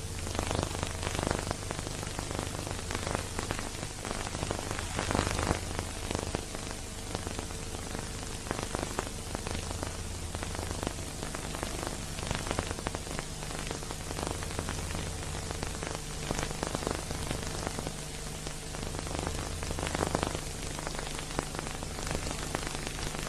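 Steady crackling hiss dense with small clicks over a low, constant hum: the surface noise of an old silent-film soundtrack transfer, with no music playing.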